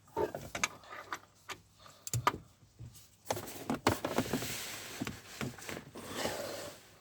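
Metal clicks and knocks of a socket and hand tools being worked in a car's engine bay, followed by a few seconds of scraping and rubbing.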